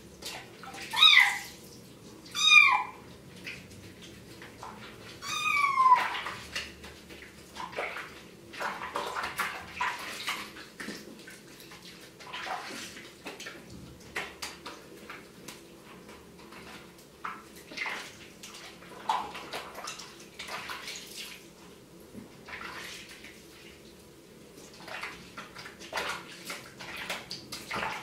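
A kitten about 40 to 50 days old mewing loudly while being bathed: three high-pitched cries in the first six seconds, then water sloshing and splashing in a sink as it is held and rubbed, with a few fainter mews later.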